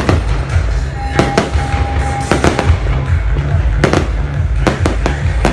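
Fireworks bursting overhead in a string of sharp, irregularly spaced bangs, over background music with a low pulsing beat.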